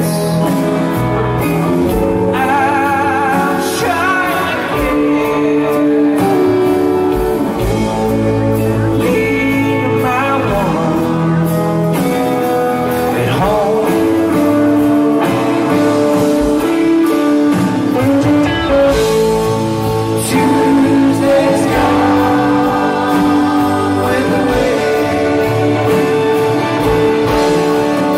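Background music: a song with a singing voice over instrumental backing, steady throughout.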